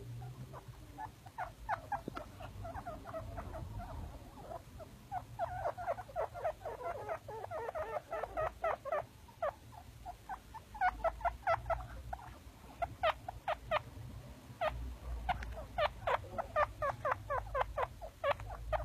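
Baby chinchillas squeaking: many short, high chirps in quick runs, sometimes overlapping, with the busiest stretches about a third of the way in and again in the second half.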